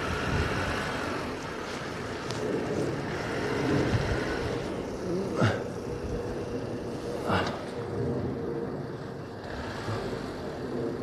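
Steady outdoor traffic background with a vehicle engine running and a faint constant hum. Two short sharp sounds come about five and a half and seven seconds in.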